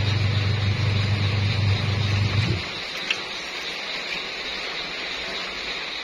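Top-loading washing machine in its wash cycle: the motor hums steadily as the pulsator churns clothes through the water, then cuts out about two and a half seconds in. The swishing of water carries on through the pause between agitation strokes.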